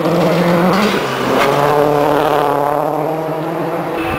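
Rally car engine at high revs, dropping in pitch about a second in as it shifts up a gear, then holding steady.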